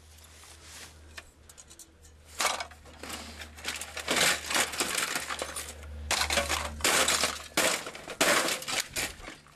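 Metal and plastic computer parts clattering and banging in quick, irregular knocks as a desktop PC tower is pulled apart and struck. A low steady hum runs underneath and stops about three-quarters of the way through.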